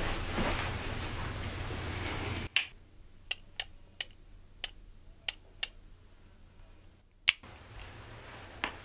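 Sharp metallic clicks of a revolver being handled, about eight of them at uneven intervals, each standing alone over quiet. They begin when a low room hum cuts off abruptly a couple of seconds in.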